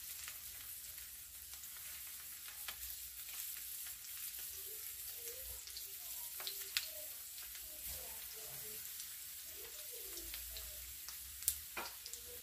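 Breaded, pre-cooked chicken pieces frying in shallow oil in a stainless-steel pan: a steady sizzle with sharp crackles now and then, a few louder pops near the end.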